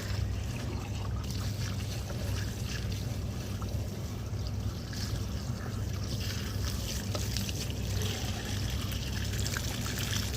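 Running water trickling, with a steady low hum underneath.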